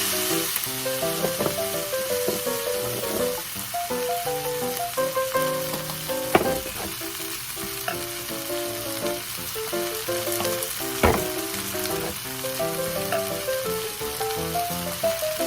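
Japchae ingredients sizzling and being stirred in a hot frying pan, with two sharp knocks a few seconds apart. Background music with a simple melody plays underneath.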